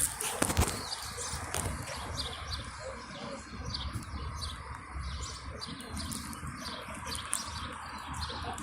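Small birds chirping over and over, short high calls, with a steady low rumble underneath and a few sharp clicks in the first second.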